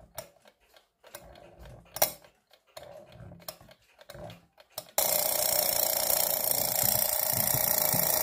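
A 1940s Chronotechna alarm clock's alarm being wound by its key, with only faint handling clicks and no ratchet clicking, since its torsion-spring winding is meant to be silent. About five seconds in, the alarm goes off suddenly and rings loud and steady.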